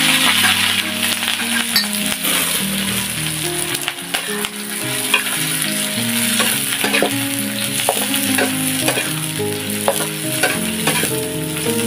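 Chopped shallots, chilies, green tomatoes and greens sizzling steadily in hot oil in a wok as they are sautéed, with short clicks from stirring now and then.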